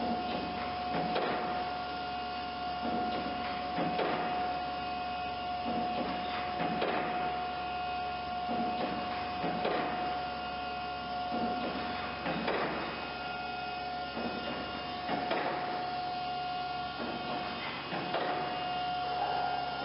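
EM-S double-side grinding machine for band saw blades running: a steady motor tone with a short grinding stroke about once a second as it works through the stellite-tipped teeth one after another.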